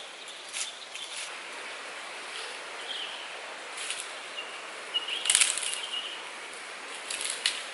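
Outdoor ambience in dry scrub woodland: a steady high hiss with a few short bird chirps and brief crackles, the loudest crackle about five seconds in.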